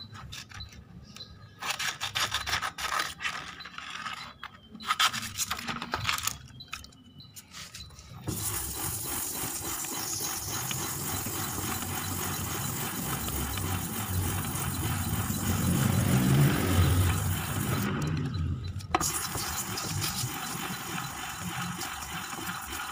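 Fine 400-grit sandpaper rubbing against the inside of a scooter's steel clutch bell, smoothing scoring off the drum's friction surface. For the first eight seconds the rubbing comes in short strokes, then it runs on steadily, with a brief pause about three-quarters of the way through.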